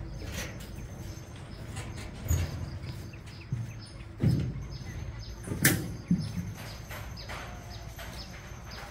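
Footsteps and a few sharp knocks, the loudest about halfway through, as someone steps off a plank-and-metal footbridge onto a dirt path. Birds chirp in short high notes repeating through the background.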